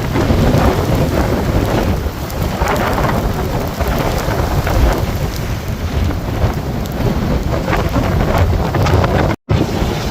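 Loud storm noise: a deep rumble of wind buffeting the microphone under a rushing roar of weather and water that swells every couple of seconds. The sound cuts out for an instant near the end.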